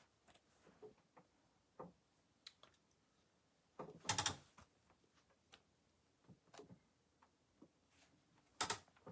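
Faint, scattered light clicks and taps, with two louder brief noises about four seconds in and near the end.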